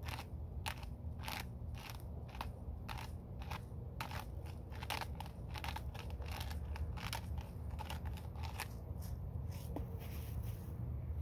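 Pepper grinder being twisted to grind black pepper: a steady series of crunching clicks, about two or three a second, stopping about nine seconds in.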